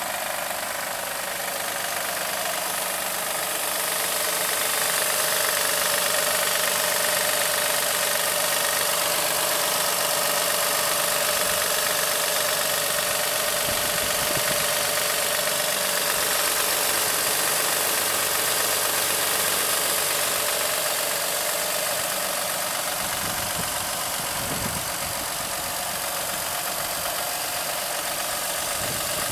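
2007 Acura MDX's 3.7-litre V6 running with a steady knocking noise from the engine bay. The knock comes from a faulty power steering belt tensioner; replacing the tensioner cured it.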